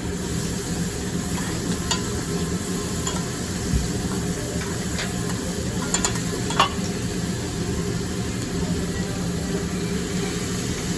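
Food sizzling and frying on a hibachi griddle, a steady hiss, with a few sharp clicks scattered through it.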